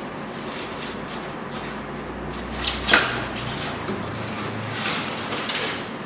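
Handling noises: a sharp knock or clack about three seconds in, with scraping and rustling around it and again near the end.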